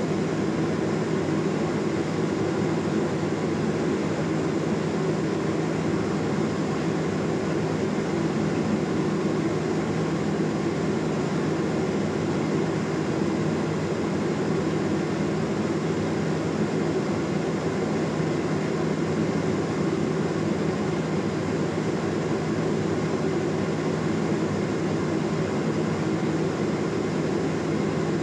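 Steady cabin drone of a Cessna P210 Centurion in flight: its turbocharged six-cylinder engine and propeller running at a constant setting, with airflow noise. An even, low hum with no change in pitch or level.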